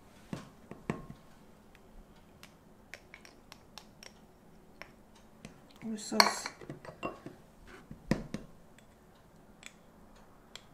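A spatula and small glass dishes clinking and scraping against a glass mixing bowl while a soy-sauce mixture is stirred and sauce is scraped in: a scattered series of light clicks and taps, a few sharper ones near the start and about two-thirds of the way through.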